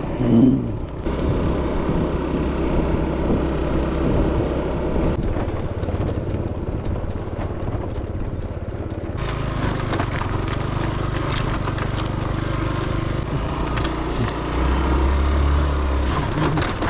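A small engine running steadily. About nine seconds in, a rushing hiss joins it.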